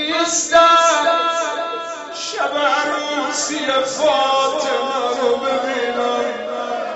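A man chanting a Shia mourning lament (rowzeh) in long melodic phrases that waver and slide in pitch, with a new phrase starting about two seconds in.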